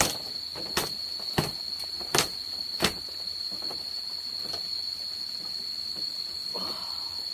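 Five sharp knocks in the first three seconds, then a few fainter taps, over a steady high-pitched whine.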